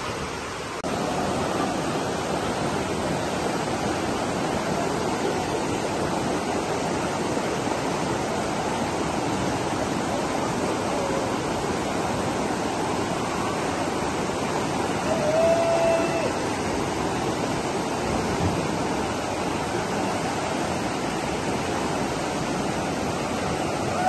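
River rapids rushing steadily, white water churning over and around rocks. A short call rises above the water about two-thirds of the way through.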